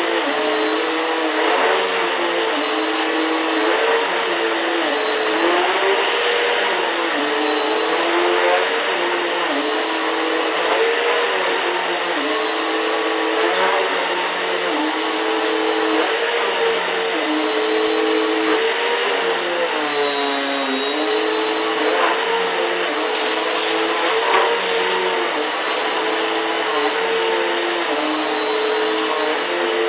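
Eureka PowerSpeed upright vacuum running with a steady high motor whine, its pitch dipping and recovering about every two seconds as it is pushed back and forth over the rug. Brief crackles of debris being sucked up come through at intervals, thickest a little past two-thirds of the way in.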